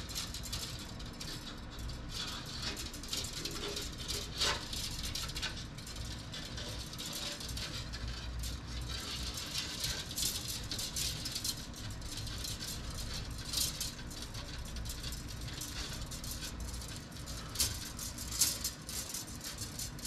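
A small tubing cutter being worked around stainless steel brake line, with irregular light metallic clicks, scrapes and rattles from the coiled line on the bench.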